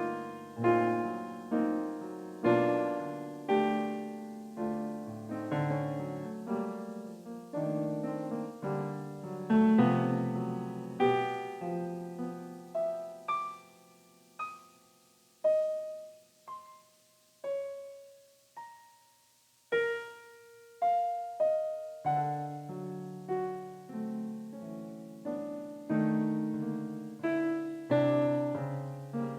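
Electronic keyboard with a piano sound playing struck chords about one or two a second, each decaying. About halfway through it thins to sparse single notes left to ring out, then the chords return.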